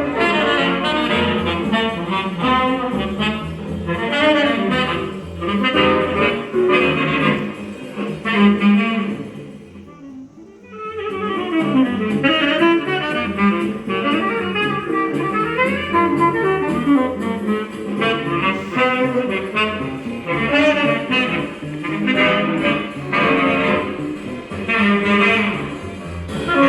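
Music played from a vinyl record on a turntable, through a tube amplifier and loudspeakers. It is continuous, with a brief quieter dip about ten seconds in.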